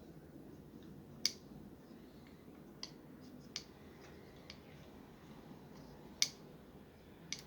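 Eyeglasses temple arms clicking: about five sharp, separate clicks at uneven intervals, the loudest about a second in and again about six seconds in.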